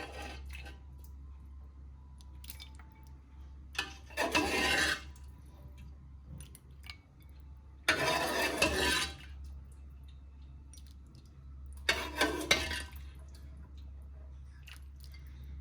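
Thin mutton broth (yakhni) being ladled from a cooking pot into a serving bowl: three pours of about a second each, with light knocks of the ladle between them.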